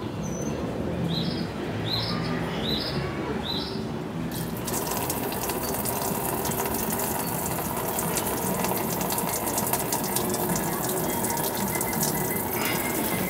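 Fuel gushing from the opened drain plug of a Mitsubishi Lancer Evolution's tank and splashing into a drain pan. The pour starts suddenly about four seconds in and then runs steadily. It follows a few short chirps.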